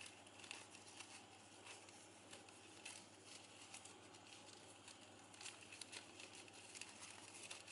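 Faint crinkling and rustling of glossy ribbon being handled and pulled tight around a coin, heard as a scatter of soft little clicks.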